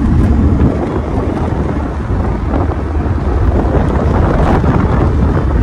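Heavy wind buffeting the microphone: a loud, steady rumble.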